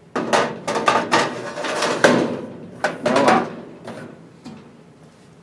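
Steel drawers of an IKEA Helmer cabinet sliding in their runners and clanking against the metal cabinet as they are pushed shut, in a run of knocks and rattles over about three seconds that then dies away.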